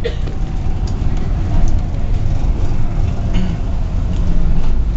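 Double-decker bus on the move, heard from inside the upper deck: a steady low engine and road rumble, with a few light clicks and rattles.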